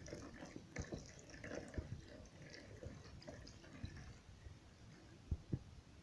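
Faint splashing and dripping of water being emptied into a bowl of grated lemon and ginger, with two light knocks a little after five seconds in.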